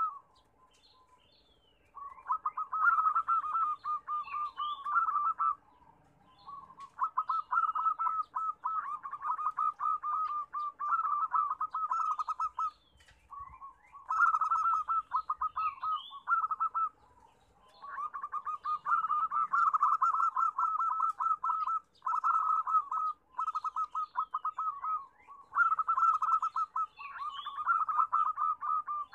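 Zebra doves (perkutut) cooing in long, rapid rolling trills, in bouts of a few seconds separated by short pauses, with faint high chirps over them.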